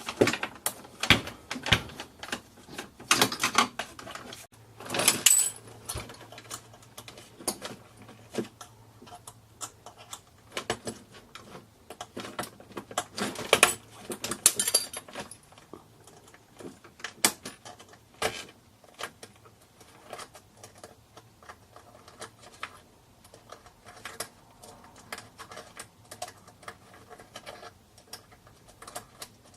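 Clicks, knocks and rattles of hard plastic and small metal parts being handled and pulled apart during a clock radio teardown, with two denser bursts of clatter, one near the start and one about halfway through.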